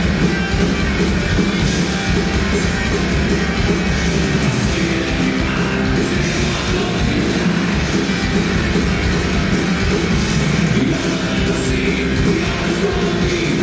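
A heavy metal band playing live, loud and without a break: distorted electric guitar and bass over drums, with a singer shouting the vocals into a microphone.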